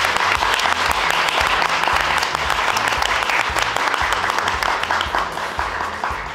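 Applause: many hands clapping in a dense patter that fades out near the end.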